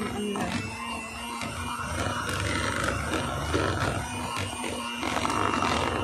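Electric hand mixer running steadily with a constant hum, its beaters churning through a thick dessert mixture in a bowl.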